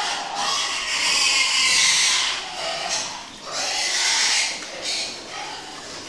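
A pen of domestic pigs making harsh, noisy calls in several bursts, the loudest about a second in and again around four seconds.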